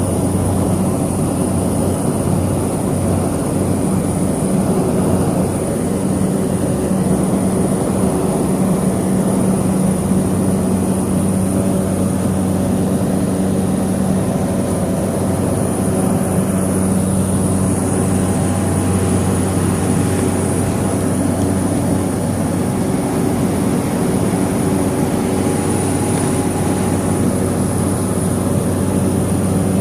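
Cessna 208 Caravan's Pratt & Whitney PT6A turboprop heard from inside the cabin: a steady, loud drone with a low hum and a thin high turbine whine, a lower tone strengthening about six seconds in.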